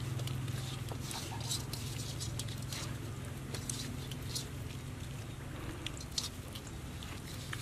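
A hand mixing spice-coated raw quail in an iron wok: quick irregular wet clicks and the crumbly rustle of the spice mixture against the meat and metal, over a low steady hum.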